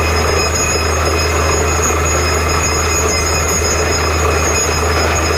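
Truck-mounted borewell drilling rig running loud and steady, with a constant low hum and a few steady whining tones, as muddy water and cuttings gush and splash out of the bore at the well head.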